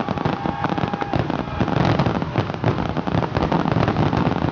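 Fireworks going off in a dense, continuous barrage of rapid overlapping bangs and crackles.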